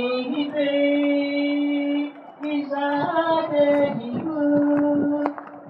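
A woman's voice singing long, held notes, with a short break about two seconds in.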